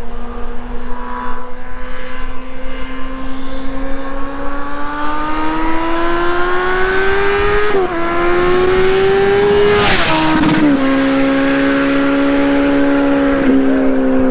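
Kawasaki ZX14R's inline-four with a Coffman's shorty exhaust, accelerating hard in a rising note with a brief dip at a gear change. About ten seconds in it passes close in a rush of air and the pitch drops suddenly, then it pulls away at steady revs with one more short dip.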